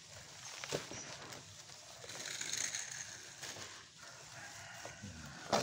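Dry bamboo leaves, moss and humus being mixed by hand in a large tub: crisp rustling and crackling of the leaves, with a few sharp clicks.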